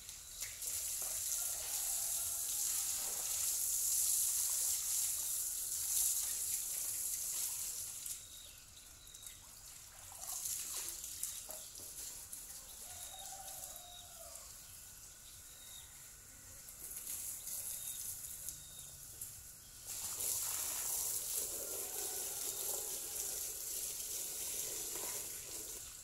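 Water from a garden hose spraying and splashing onto the wet ground and plants, loud in spells and quieter in between as the hose is swung around. A rooster crows faintly in the background about halfway through.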